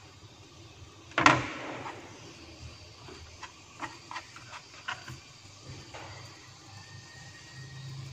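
A sharp knock about a second in, then a run of light taps and clicks as fingers pick and sweep chopped celery off a plastic cutting board, over a faint steady hiss.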